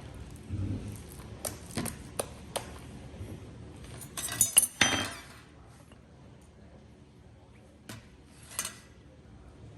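Slime being handled: scattered sharp clicks and pops, with a louder, denser stretch of crackling about four seconds in that lasts a second or so, then only a few isolated clicks.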